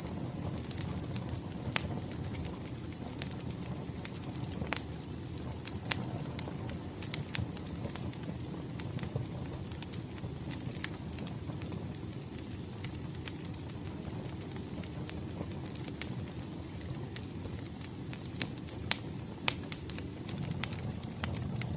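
Wood fire crackling, with sharp pops scattered throughout over a steady low rumble of the burning logs, and a few louder pops near the end.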